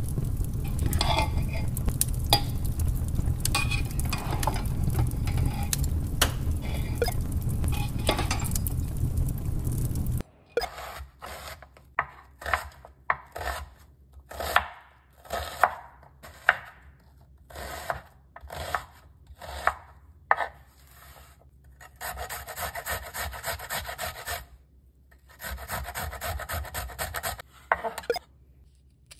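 For about ten seconds, a loud low rumbling noise with scattered clicks. Then a kitchen knife chops onions on a wooden cutting board in a run of separate sharp strokes, followed by two steady stretches of grating, each a couple of seconds long.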